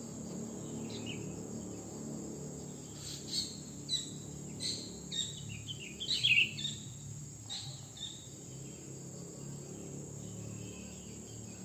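Sooty-headed bulbul (kutilang) singing: a string of short, bright whistled phrases starting about three seconds in, loudest around six seconds and fading out after about eight seconds, over a steady high hiss.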